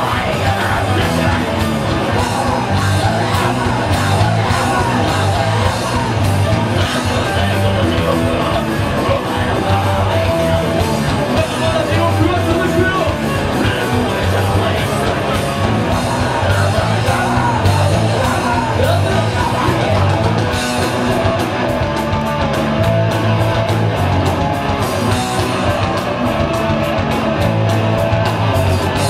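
Loud live rock band playing distorted guitars, bass and drums, with shouted, yelled vocals over the top. The drumming turns to fast, rapid hits for several seconds near the end.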